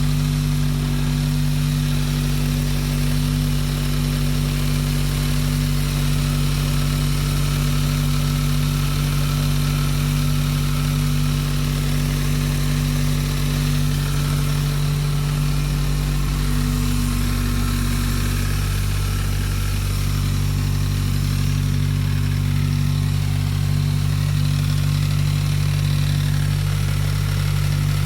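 Turbocharged car engine idling steadily just after start-up, run to check for a misfire after a loose sump restrictor hose and the PCV hose were refitted. The idle note shifts slightly partway through.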